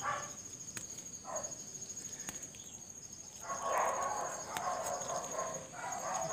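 A dog barking: one bark about a second in, then a run of barking in the second half. A steady high insect trill runs underneath.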